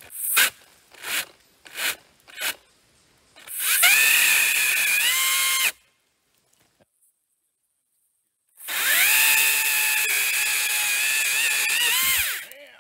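Makita XAU02PTB 36V cordless brushless pole saw: four quick trigger blips, then two longer runs of a steady high motor-and-chain whine as it cuts through a fallen log. The pitch drops as the motor winds down near the end.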